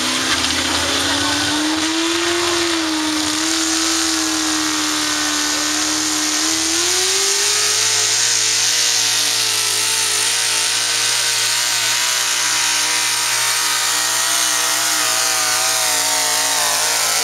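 Hot rod pulling tractor's engine running hard at high revs under load as it drags the pulling sled. The engine pitch climbs about seven seconds in and then holds high and steady.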